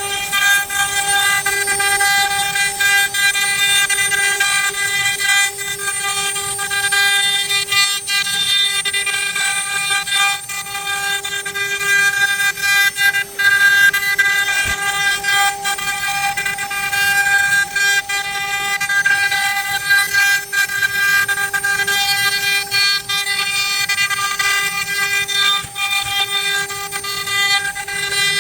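Spindle motors of a multi-head CNC wood router running at a steady high-pitched whine while their router bits cut wood, with a rasping noise and scattered short clicks.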